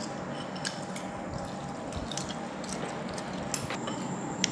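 Faint, scattered clicks of chopsticks against ceramic bowls over low room noise, the sharpest click near the end.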